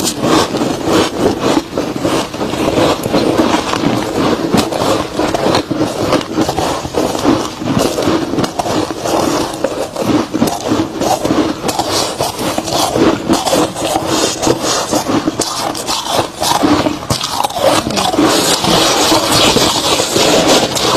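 Close-up chewing of a soft, crispy chunk of freezer frost: dense, continuous crunching and crackling with no pauses.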